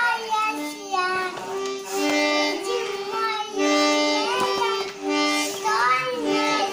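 Red toy button accordion played in a series of held reed chords, each about a second long, as the bellows are squeezed in and out. A young child's voice sings along in snatches.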